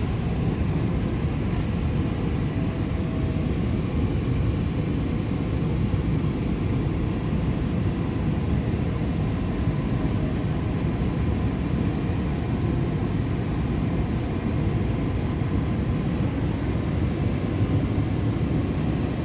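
EP2D electric multiple unit running at speed, heard from inside a passenger car: a steady low rumble of wheels on rail and running gear, with a faint steady whine above it.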